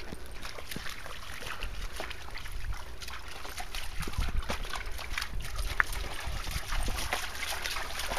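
An Inuit dog wading through a shallow stream, its paws splashing in the water over the steady trickle of the stream. The splashing gets busier about halfway through as the dog walks deeper in.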